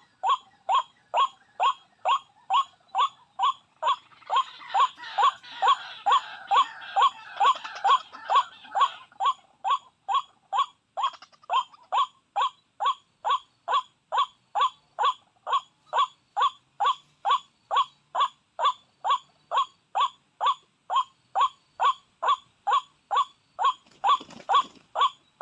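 White-breasted waterhen lure call repeated with machine-like evenness, about two falling calls a second. Behind it, a few seconds of noisy rustling a few seconds in, and a short low thump or rustle near the end.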